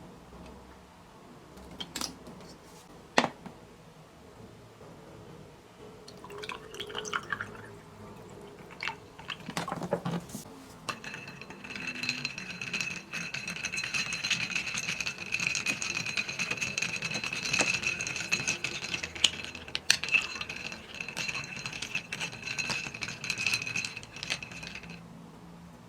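A few sharp clinks of kitchenware, then about fourteen seconds of steady liquid sound in a glass with ice, dotted with small clinks, as an iced yuja-tea drink is made.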